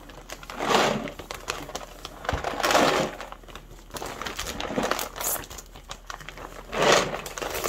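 Clear plastic bag crinkling and rustling in several bursts as it is handled and peeled away from a resin piece.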